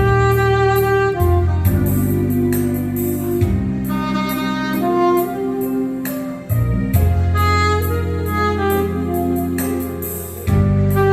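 Saxophone playing a slow melody in long held notes over a backing track with a strong bass line, keyboard and a steady beat.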